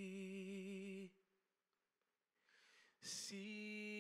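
A man's solo voice singing a hymn unaccompanied. A held note with vibrato ends about a second in, followed by a short pause and an audible breath. Then a sharp 's' opens the next line, which begins on another long held note.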